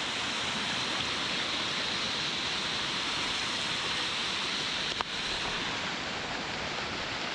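Steady rush of water falling over a waterfall, with one brief click about five seconds in.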